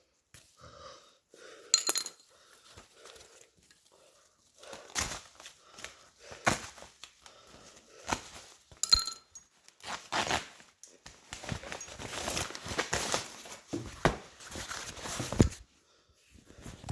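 Plastic packaging crinkling and rustling in irregular bursts as it is handled, busiest through the middle and latter part, with a couple of sharp clicks.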